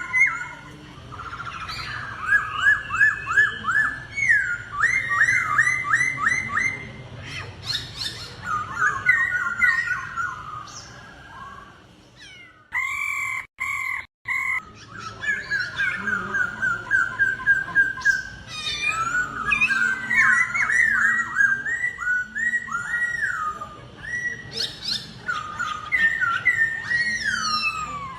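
Laughingthrush (khướu) singing in a competitive song duel: fast runs of loud, repeated whistled notes, phrase after phrase. The audio drops out abruptly for a moment about halfway through.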